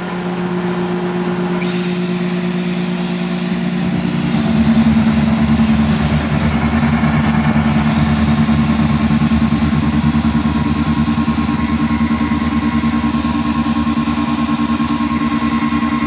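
DeWalt magnetic-base drill running against a rail car's side: a steady hum, then the drill motor's high whine comes in about two seconds in. From about four or five seconds in the low drone grows louder and steadier as the bit drills into the car.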